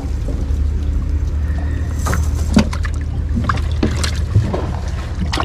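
Small fishing boat's motor running steadily with a low hum, with a few short knocks.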